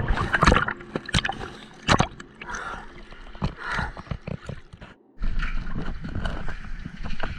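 Sea water sloshing and gurgling with irregular splashes, as a swimmer in a wetsuit moves in the water. The sound drops out for a moment about five seconds in.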